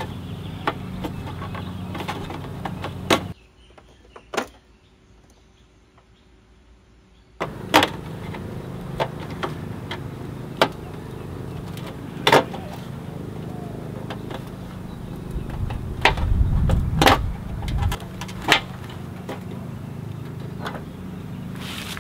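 Irregular sharp clicks and taps of a Vespa LX's trim beading being worked off the metal legshield edge by hand, over a steady low hum. About three seconds in the hum drops away for some four seconds, and about two-thirds through a low rumble rises briefly.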